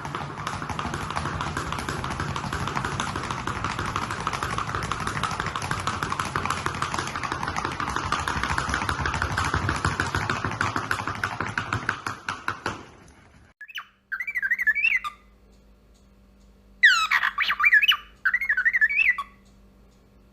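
A dense, steady rasping noise that stops abruptly about 13 seconds in. After it come short, warbling, high-pitched animal calls that waver up and down in pitch, with one louder, sweeping call partway through.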